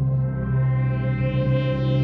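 Minimalist ambient synthesizer music: a steady low drone with a single held synth note fading in over it and sustained.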